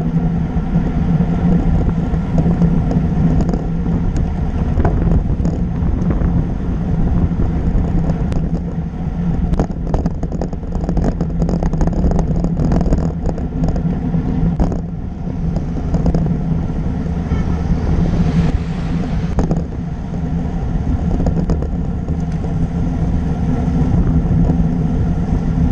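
Steady road rumble and wind noise from a road bike riding at speed, picked up by a bike-mounted camera, with a low hum throughout. Clusters of clicks and rattles come in between about ten and fifteen seconds in.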